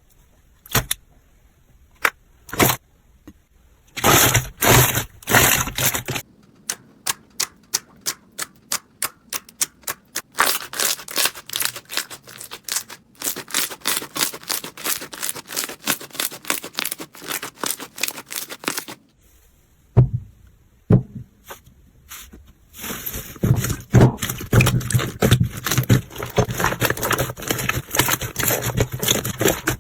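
Slime being pressed and squished by hand, giving sharp clicks and popping crackles. There are a few scattered pops at first, then quick runs of clicks and long stretches of dense crackling, with a short pause about two-thirds of the way through.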